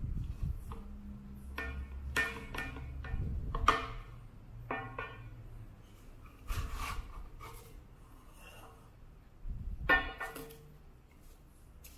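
Small glass Coca-Cola contour-bottle salt and pepper shakers clinking and knocking against a wooden carrier caddy and the tabletop as they are lifted out and set down. It is a series of separate clinks and knocks, some ringing briefly, the loudest about four seconds and ten seconds in.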